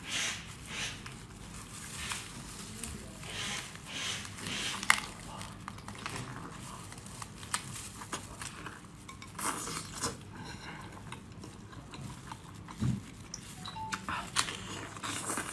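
Close-up eating of seafood: irregular clicks and cracks of shells being broken and picked apart, with chewing and mouth sounds in between.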